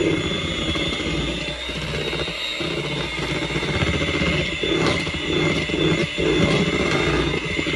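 Electric hand mixer running steadily, its beaters churning cheesecake filling with strawberry puree in a plastic bowl; a steady motor whine sits over the churning.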